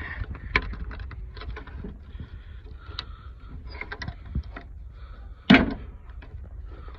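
Light clicks and knocks of hands working at a stuck cap under a truck's hood, with one louder knock about five and a half seconds in.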